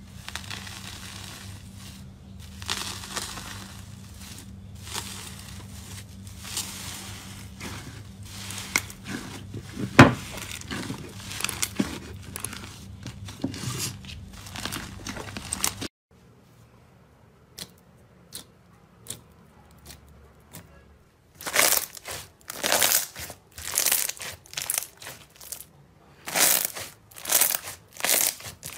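Slime being pressed and squeezed by hand: crinkling of foil-wrapped slime and wet squishing, over a steady low hum. After a sudden break about halfway through come a few faint clicks, then a run of loud, separate crackly bursts as the slime is worked.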